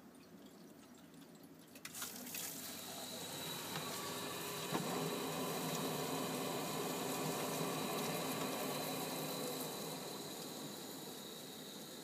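Vaillant gas boiler starting to run: a few clicks about two seconds in, then a steady rushing hiss with a faint high steady tone, a sharp click near five seconds, and a slight easing near the end. The boiler is working normally after a repair.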